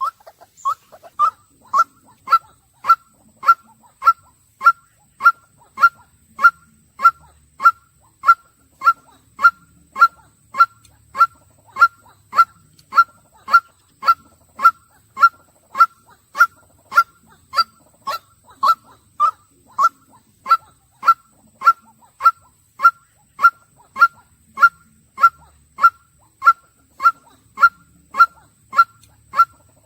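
White-breasted waterhen calling: one short, honking note repeated steadily, just under two a second, without a break.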